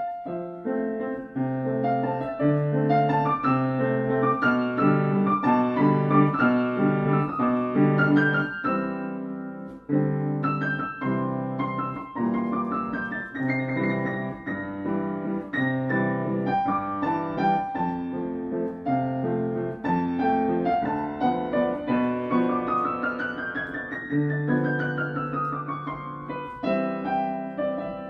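Background piano music: a gentle melody over steady chords, with quick runs of notes climbing and falling, the longest in the second half.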